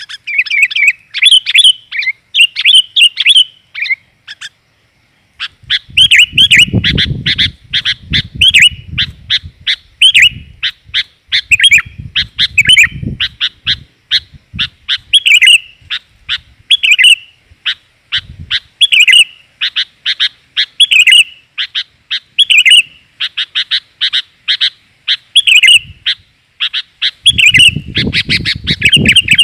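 Sooty-headed bulbul (kutilang) calls: rapid, nearly continuous chirping chatter with a short pause a few seconds in. This is a female's call, played to lure in males. Low rumbles come in now and then underneath.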